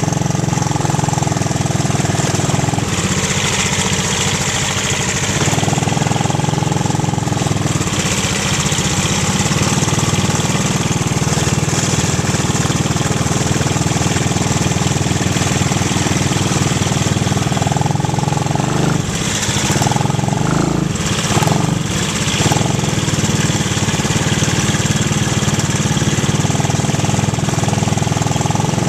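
ATV engine running steadily, its pitch shifting a few times, with some clattering knocks about twenty seconds in.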